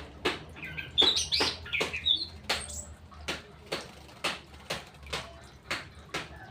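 A bird giving short high chirps, mostly in the first half, over a steady run of sharp clicks about two a second.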